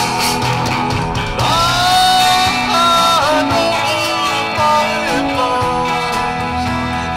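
Rock music with guitars, and a lead melody with sliding pitch coming in about a second and a half in.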